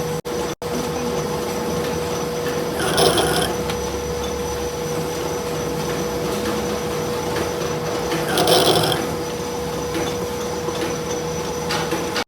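A workshop machine hums steadily while metal is rasped in long strokes, about one every five seconds. The sound drops out twice for an instant near the start.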